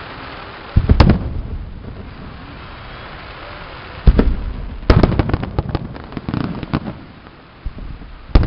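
Fireworks display: aerial shells bursting with sharp booms, one about a second in, then more around four to five seconds in, followed by a rapid run of crackling reports, and another boom near the end.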